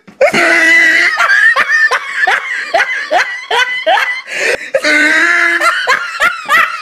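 Loud, high-pitched human laughter: a held cry, then a rapid run of short bursts about three a second, then another held cry.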